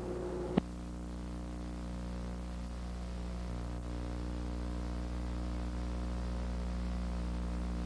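Steady electrical mains hum with a buzzy edge, with a single short click about half a second in.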